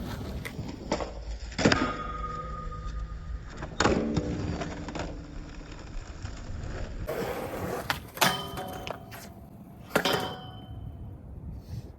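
Skateboard wheels rolling on pavement, with several sharp clacks of the board striking the ground at intervals of a few seconds, each ringing briefly.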